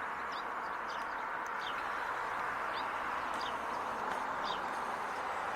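Small birds chirping, a string of short high chirps every half second or so, over a steady outdoor background hiss.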